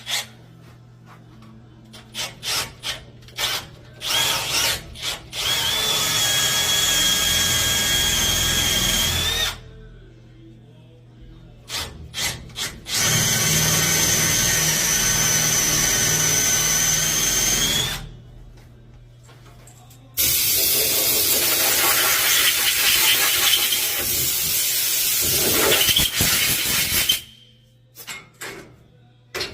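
Power drill with a 17/32-inch bit drilling out a damaged 1/2-inch threaded stud hole in preparation for a HeliCoil thread repair. It runs in three long bursts, each led by short trigger blips. The first two carry a steady high whine; the last, about twenty seconds in, is harsher and grittier.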